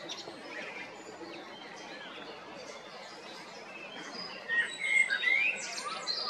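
Male common blackbird singing: a fluting phrase of gliding notes about four seconds in, topped by higher twittering notes, over faint scattered chirps.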